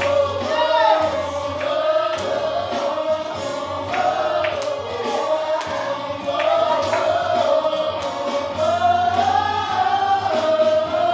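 Gospel music: a choir singing with instrumental backing and sharp, regular beats.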